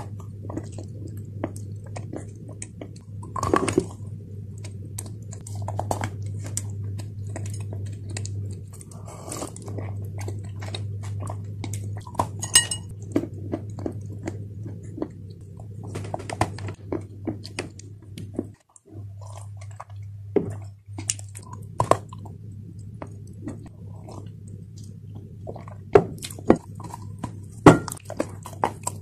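Close-up biting and chewing of chunks of dry clay: many short, sharp crunches and crumbly chewing sounds, over a steady low hum. A short ringing clink comes about twelve seconds in.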